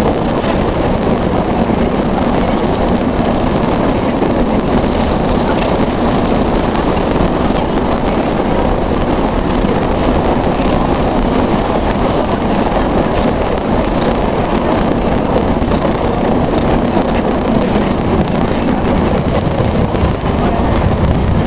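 Metro train running at speed through a tunnel, heard from inside the carriage: a loud, steady rumble of wheels on rails with a low hum underneath, unchanging throughout.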